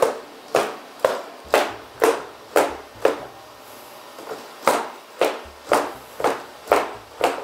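Unitree G1 humanoid robot's feet stomping on the floor as it walks, about two footfalls a second, with a pause of about a second and a half midway before the steps resume.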